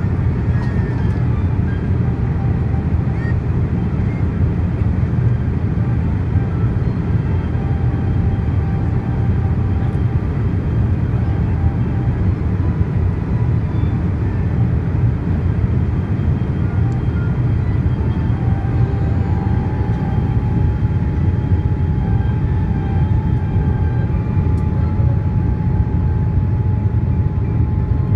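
Steady low rumble of engine and airflow noise heard inside the cabin of a Boeing 787-8 airliner descending on approach with its flaps extended. A faint steady whine joins about two-thirds of the way in.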